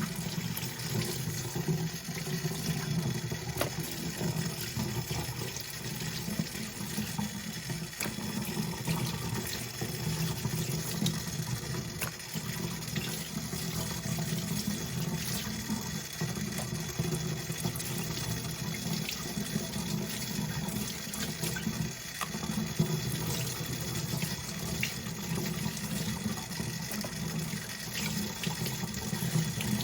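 Kitchen tap running steadily, a stream of cold water splashing in the sink as raw chicken pieces are rinsed, with a few light knocks.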